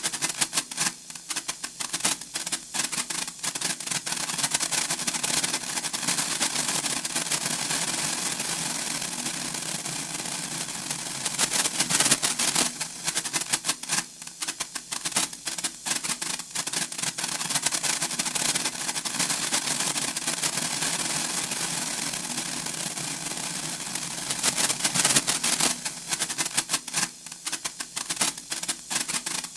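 Senko hanabi, a Japanese paper-twisted sparkler, crackling and fizzing with a rapid stream of tiny spark pops. The crackling swells into denser, louder spells about twelve seconds in and again near the end.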